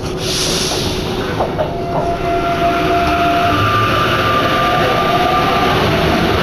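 Rubber-tyred MP89CA metro train on Line 14 running, heard from inside the car. A short hiss comes at the start, then electric traction whines step from one pitch to another over steady rolling noise that grows a little louder.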